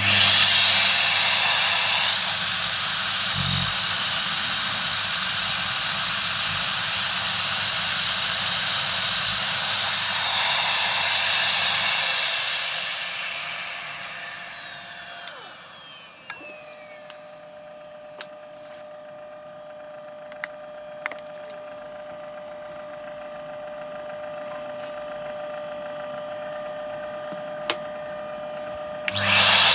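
Suction motor of a DIY record cleaning machine running with a loud, steady rushing noise, then winding down over a few seconds. A quieter steady motor whine follows, broken by a few clicks, and the loud suction starts again abruptly near the end.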